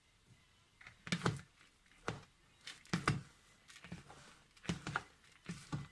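A spoon knocking and scraping in a bowl as moist soft bird food is stirred. The knocks come in an uneven series of about one or two a second.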